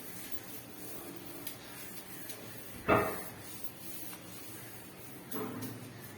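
A single sharp knock about three seconds in, like a hard object set down or a door closing, with a few faint clicks and a short soft rubbing sound near the end.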